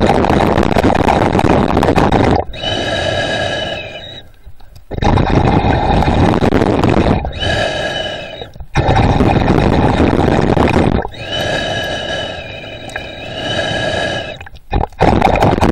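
A snorkeler breathing through a snorkel, about four breath cycles. Each cycle is a long, loud rushing breath followed by a shorter wheezing breath with a whistling note in it.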